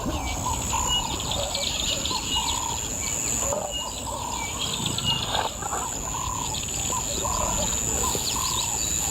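Birds calling and chirping in a chorus of short repeated notes, over a steady high-pitched whine and low background noise.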